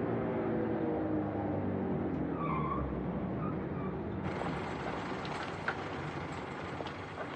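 A column of vintage military trucks slowing to a halt: engine notes falling in pitch and a brief brake squeal about three seconds in, then engines idling with scattered clunks and knocks.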